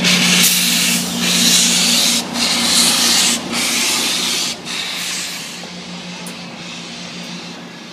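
Santa Fe 3751, a 4-8-4 steam locomotive, pulling away with loud hissing blasts of steam from its open cylinder cocks, about one a second, fading over the last few seconds as it moves off. A steady low hum from the trailing diesel locomotive runs underneath.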